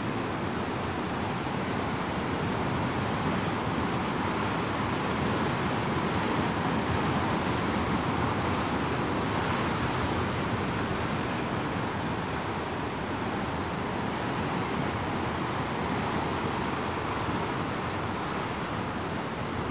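Rough winter surf of the Sea of Japan breaking over a rocky shore: a continuous rush of churning white water that swells to a louder crash about halfway through.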